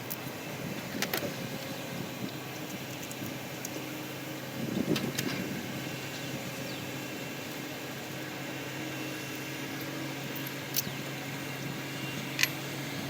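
Steady low machine hum, with a few sharp metallic clinks of hand tools on the engine's parts.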